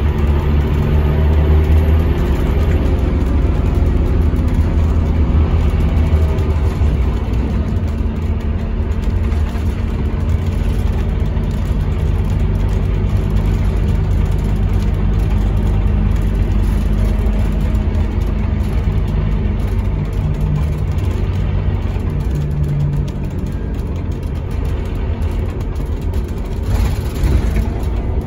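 Scania K230UB city bus under way, heard from inside the saloon: its rear diesel engine and ZF Ecomat automatic gearbox running with road noise, a steady low drone whose note shifts a few times as the bus speeds up and eases off.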